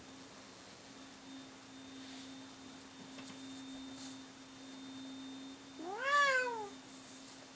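Domestic cat giving one drawn-out yowl about six seconds in, rising and then falling in pitch, over a faint low steady tone that breaks off as the yowl begins. It is a cat's warning cry in a standoff between two cats.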